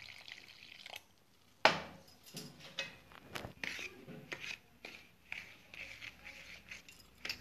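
Water poured in a thin stream into flour in a steel bowl for about the first second. Then a sharp knock, followed by a spoon scraping and clinking against the steel bowl as the flour and water are stirred into batter.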